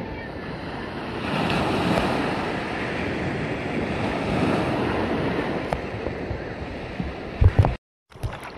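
Ocean surf washing and breaking in the shallows, rising and falling in swells, with wind buffeting the microphone. Near the end come a couple of loud thumps, then the sound cuts out for a moment.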